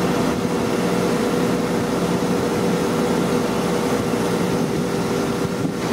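Steady drone of running machinery, a constant low hum with a higher tone above it that does not change.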